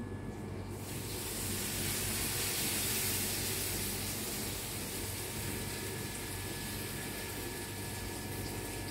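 A steady hiss that comes in sharply about a second in and holds, over a steady low electrical hum.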